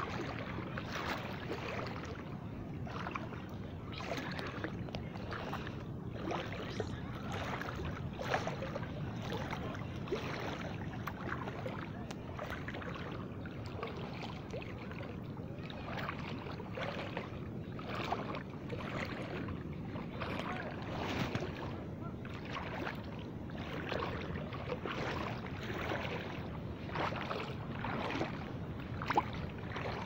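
Small waves lapping in shallow seawater: a steady wash with short, irregular splashes about once a second.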